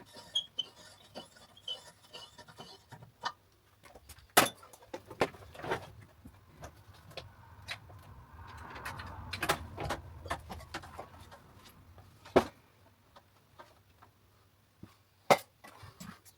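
Scattered clicks, knocks and rattles of tools and fasteners as the under-car panel is taken off, with a stretch of rubbing and scraping about halfway through.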